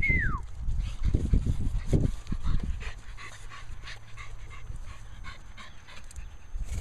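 Blue American Bully puppies panting and snuffling as they move about. A short, high whine falls away just as it begins, and a few low bumps come in the first few seconds.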